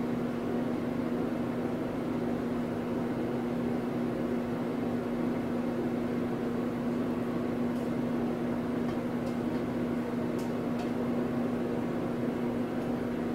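Steady hum of a running appliance or fan, with a constant low drone and hiss, and a few faint light ticks about two thirds of the way through.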